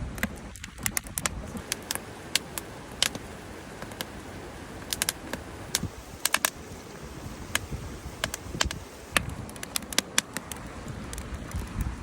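Wood fire crackling, with irregular sharp pops and snaps scattered throughout over a low steady rumble.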